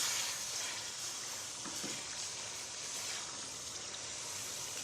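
Chicken korma sizzling steadily as it fries in oil with yogurt and korma masala.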